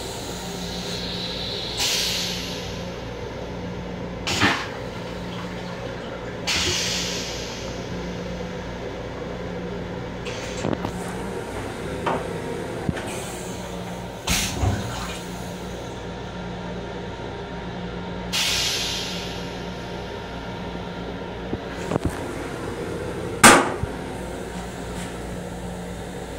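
Steady hum inside an M7 railcar's restroom, with scattered knocks and a few short hissing sounds. A loud sharp clack comes near the end as the toilet lid is shut.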